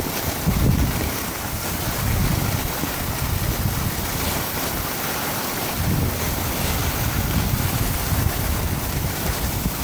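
Wind buffeting the microphone in uneven low gusts, over a steady hiss of skis sliding fast on packed snow.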